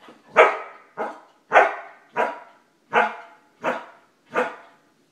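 Australian cattle dog (blue heeler) barking eight single barks on command, about two-thirds of a second apart, the first one faint: counting out the answer to three plus five.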